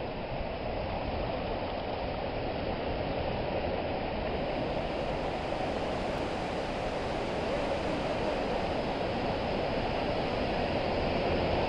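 Steady, even rushing noise with no tone or voice in it, growing slowly louder toward the end.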